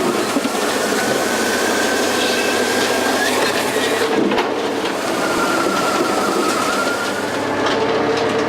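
Hydraulic log splitter working on a large log: steady, loud machine noise, with a high whine that comes in for the first few seconds and again in the middle.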